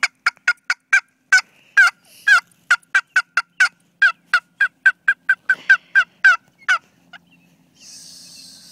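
A long run of turkey yelps: about two dozen short, sharp, falling notes at roughly three a second, stopping about seven seconds in. A short hiss follows near the end.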